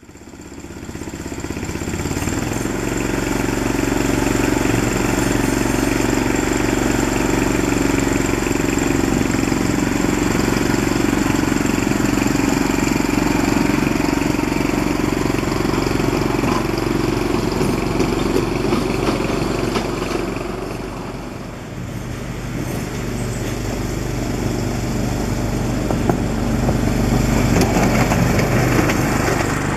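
Mardyke miniature-railway Hymek D7031 locomotive running along its track with a steady engine sound. It dips briefly about two-thirds of the way through, then builds again as the loco draws near.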